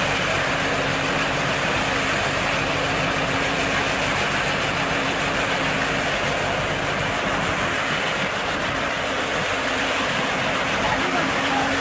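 Stationary baler-wrapper machine running steadily: a continuous mechanical noise with a steady hum that fades in the middle and returns near the end.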